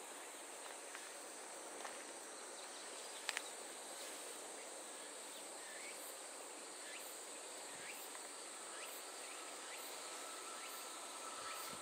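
Insects calling in a steady, high-pitched, even drone, with two faint clicks about three seconds in.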